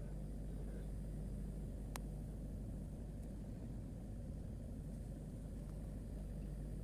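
Toyota Innova's engine idling: a steady low hum. There is a single faint click about two seconds in.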